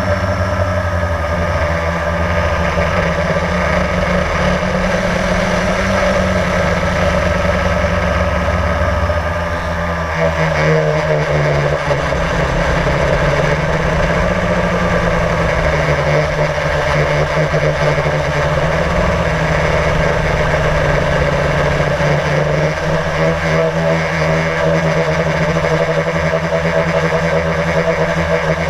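Blade drone's electric motors and propellers humming steadily, heard from the GoPro on board, with the pitch shifting about ten seconds in as the throttle changes.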